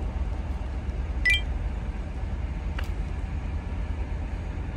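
Steady low outdoor rumble, with one short, bright clink about a second in and a faint click near three seconds.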